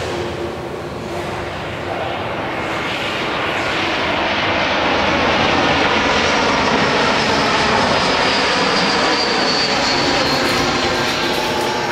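Twin-engine jet airliner flying low overhead with its landing gear down: steady jet engine noise that swells over the first few seconds, with a high whine that slowly falls in pitch near the end.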